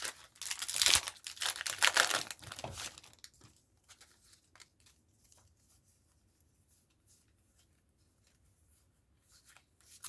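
A foil Pokémon card booster pack wrapper being torn open and crinkled, loud for about the first three seconds, then faint clicks and rustles as the cards are handled.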